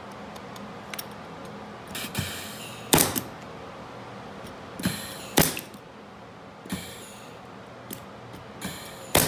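Nail gun shooting pins into a wooden strip: three sharp clacks, about three, five and a half and nine seconds in, the first two each preceded by a short whir.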